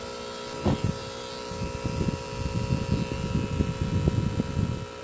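Electric tattoo machine running with a steady hum while shading skin, over an irregular low rumbling that stops near the end.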